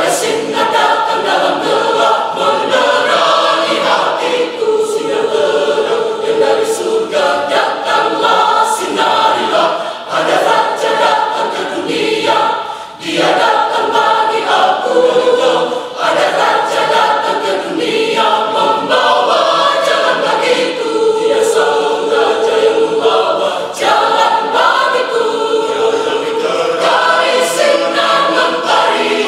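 Mixed church choir of men's and women's voices singing in several parts, holding long notes, with brief breaks between phrases.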